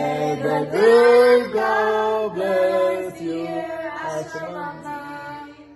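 A family of adult and child voices singing a birthday blessing song together in long held notes; the singing fades out near the end.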